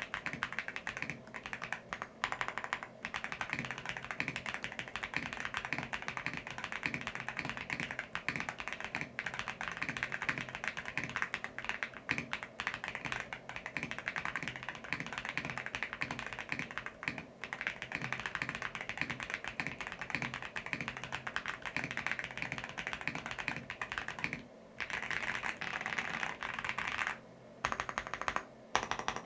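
Continuous fast typing on a mechanical keyboard fitted with factory-lubed Akko Cream Black Pro V3 linear switches and Kat-profile keycaps, many keystrokes a second. There are a few brief pauses near the end.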